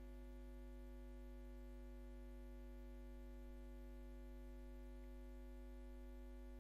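Steady electrical mains hum: a low, even buzz with a stack of overtones and nothing else, close to silence.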